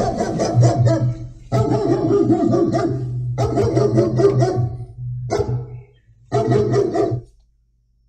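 Recorded dog barking played through a speaker as an intruder alarm, in several loud volleys that stop about seven seconds in; it sounds because the motion sensor has tripped the alarm.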